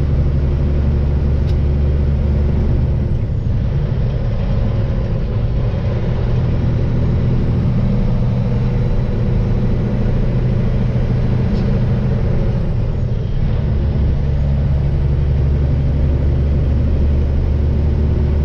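550 hp Caterpillar diesel in a semi truck pulling a loaded trailer, running steadily under load with a deep exhaust drone. The driver suspects the drone comes from an exhaust leak. The sound eases briefly about three seconds in and again near the end, then settles back.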